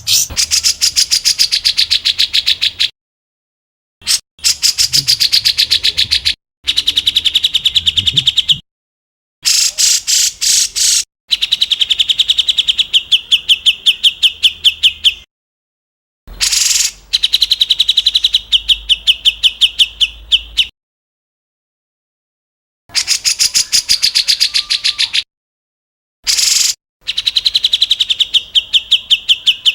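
Songbird call recording: fast runs of sharp, evenly repeated notes, about ten a second, in bursts of a few seconds each. The bursts are separated by abrupt silent gaps, as in an edited, looped 'tembakan' bird-song training track.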